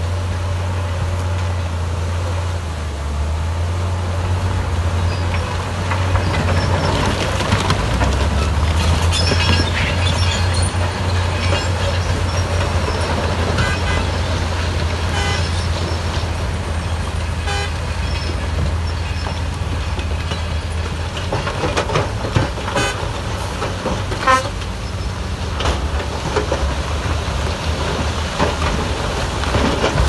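Heavy diesel earthmoving machine running steadily under load, a deep engine drone with scattered metallic clanks and knocks from about seven seconds in.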